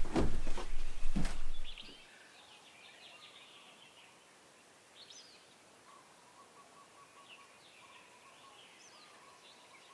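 Wooden storm doors knocking and thudding as they are slid along and shoved into their wall pocket, lasting under two seconds. Then faint bird chirps and a soft whistled call over quiet outdoor ambience.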